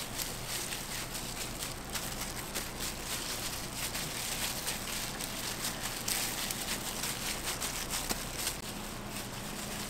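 Waffle-making kitchen sounds: a dense run of small clicks and crackles over a steady low hum of kitchen equipment.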